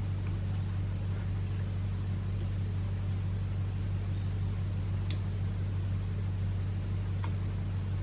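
Steady low hum and hiss of room background, with two faint small clicks about five and seven seconds in from handling the rifle's pistol grip and its spring.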